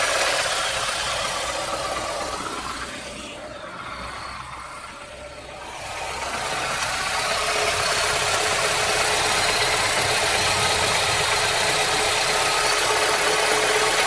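Lada Niva Legend's 1.7-litre four-cylinder engine idling cold, with a knock that comes through now and then; the owner says this knock appears only on a cold engine and goes away once it warms up. The sound drops away for a few seconds about two to six seconds in, then returns.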